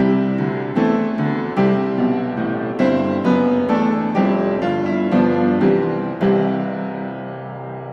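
Background piano music, notes struck at an even pace, ending on a chord that fades out over the last couple of seconds.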